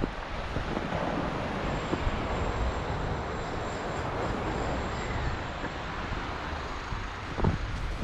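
Wind rumbling on the microphone over a steady outdoor rush of noise, with a short thump near the end.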